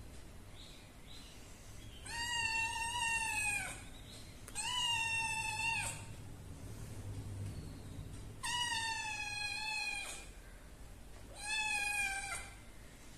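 A domestic cat meowing four times, long drawn-out meows about three seconds apart.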